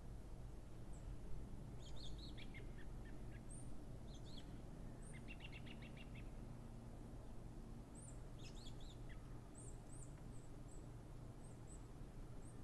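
Small birds chirping over a low, steady outdoor background noise: scattered short high calls, a quick trill of rapidly repeated notes about five seconds in, and a run of thin high chirps in the second half.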